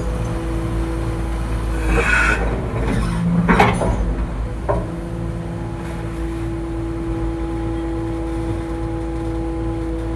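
Excavator's diesel engine running steadily with a low drone and hum. A few short rushes and a clunk from the machine working in the first five seconds, then a steady run.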